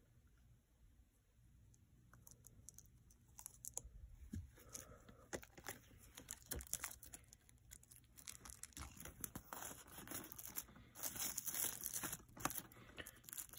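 Plastic shrink-wrap being slit and peeled off a Blu-ray steelbook case, making faint crinkling and crackling. It starts a couple of seconds in and grows denser and louder over the last few seconds.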